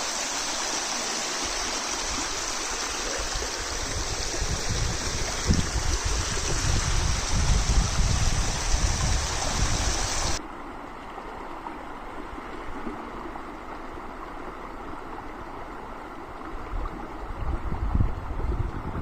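Steady rush of running water from a mountain spring, with low wind gusts buffeting the microphone. About halfway through the sound cuts abruptly to a quieter, duller wind noise with little water.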